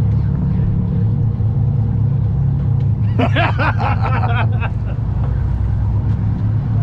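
Charter fishing boat's engine running with a steady low drone. About three seconds in, a voice calls out briefly over it.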